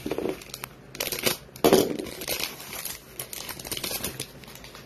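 Foil wrapper of a football trading card pack crinkling and tearing as it is ripped open by hand, in an irregular run of crackles and rustles, loudest about two seconds in.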